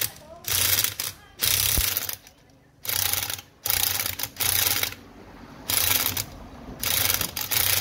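Repeated rasping strokes of a hand tool on metal, about one a second, each lasting around half a second with short quiet gaps between.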